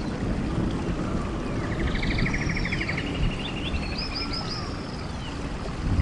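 Rainforest ambience: a steady rush of falling water from a waterfall and rain. Birds call over it, with a fast trill about two seconds in and short high chirping calls around two and four seconds in.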